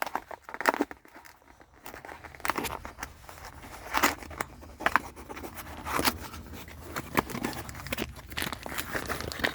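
Plastic packaging crinkling and rustling in the hands, with irregular crackles and short tearing sounds, as a car dehumidifier bag is handled and unwrapped.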